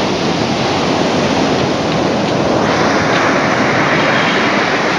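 Ocean surf breaking and washing up onto a sandy beach, growing louder about halfway through.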